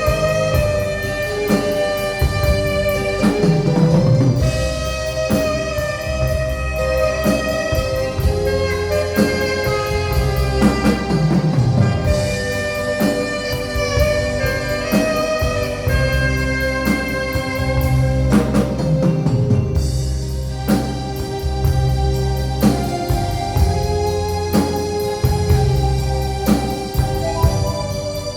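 Live instrumental band music: an alto saxophone plays the melody over keyboard and a drum kit keeping a steady beat.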